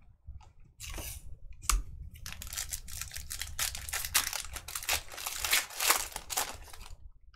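Foil wrapper of a pack of trading cards being torn open and crinkled, a sharp click followed by several seconds of dense crackling.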